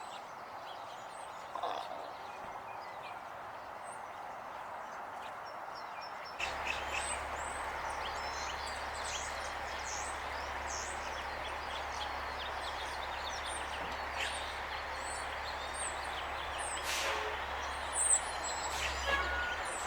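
Outdoor background noise, a steady hiss, with small birds chirping now and then. About six seconds in, a low rumble sets in suddenly and the chirping becomes more frequent.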